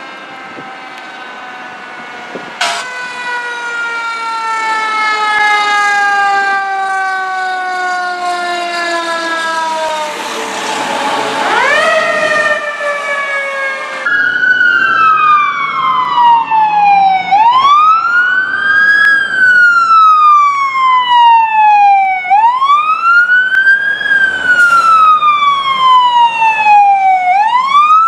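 Fire engine sirens: first a siren winding down in a long, slow fall in pitch, then rising sharply again. After a cut, a wailing siren sweeps up quickly and falls slowly, repeating about every five seconds.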